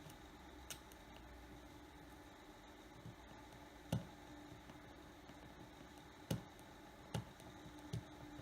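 Five light, sharp clicks of a small metal repair tool tapping against the opened phone's internal parts, spread a second or more apart, over a faint steady hum.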